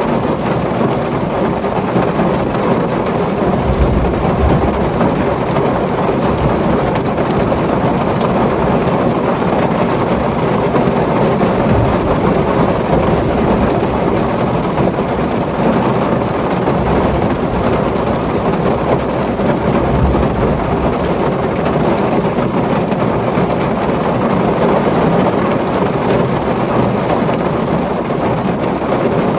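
Heavy rain pouring steadily on a tin roof, with low rumbles of thunder swelling now and then.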